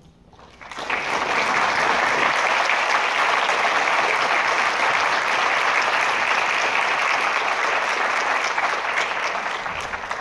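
Audience applauding, breaking out about a second in and holding steady.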